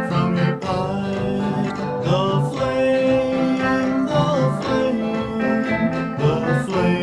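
Music from a 1958 vocal-group record: a guitar-led passage with no lyrics sung.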